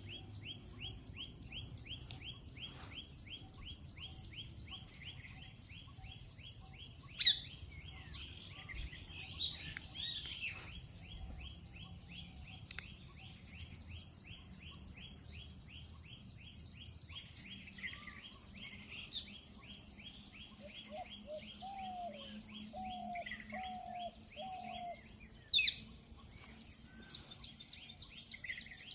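Insects trilling steadily with scattered bird chirps, including two sharp, loud chirps, one about seven seconds in and one near the end. A run of four short, lower calls comes a little before the second loud chirp.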